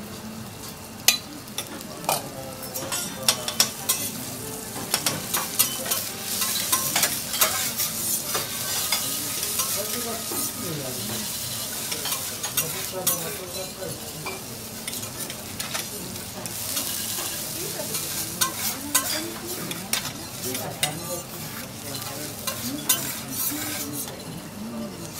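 Minced garlic sizzling in oil on a steel teppanyaki griddle, the sizzle growing over the first few seconds, with repeated clicks and scrapes of a metal spatula and fork spreading and stirring it as it fries golden.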